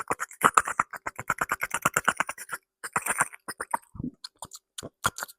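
Close-miked ASMR mouth sounds: a fast run of wet clicks and pops, about ten a second. About three seconds in they thin out into scattered softer clicks, with one low thump near four seconds.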